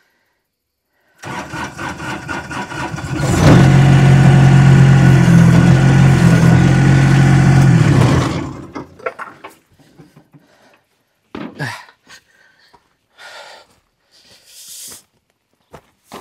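Digger engine coming on about a second in, running much louder for about five seconds, then dying away; a few scattered knocks follow.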